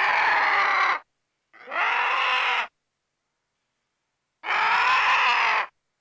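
Vulture giving three harsh calls, each a little over a second long, with silent gaps between them.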